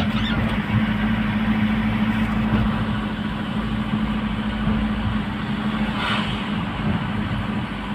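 Truck engine running steadily with a constant low drone, over an even hiss.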